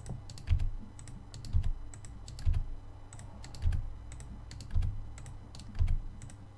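Computer keyboard and mouse clicking: scattered quick clicks, with a duller thud about once a second, over a low steady hum.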